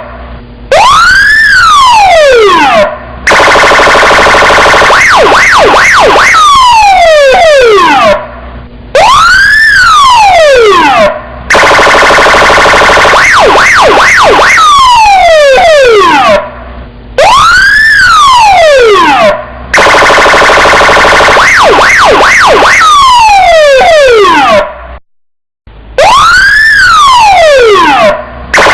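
Electronic police-car siren cycling through its tones, loud. A wail rises and falls over about two seconds, then a harsh buzzing tone with fast yelping warbles follows for about five seconds. The pattern repeats about every eight seconds, with brief breaks between tones.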